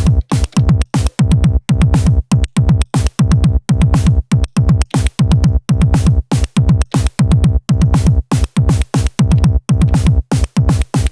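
Elektron Digitone FM synthesizer playing a drum-machine pattern: punchy kick drums that drop in pitch on each hit, in a fast, busy rhythm with sharp hi-hat-like ticks, over a steady held tone.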